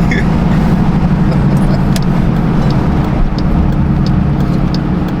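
Car engine running with a steady low drone, holding an even pitch without revving.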